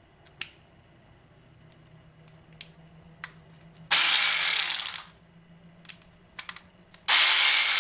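Husky 3/8-inch 12-volt cordless ratchet run twice in short bursts of about a second each, its motor and head whirring and then winding down, with light clicks from handling the tool in between.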